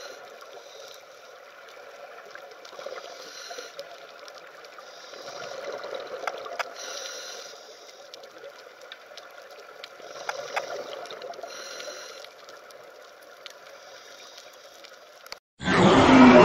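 Underwater reef ambience: a steady watery hiss with scattered clicks and crackles. Near the end it cuts off and a loud animal call, about a second and a half long, takes over.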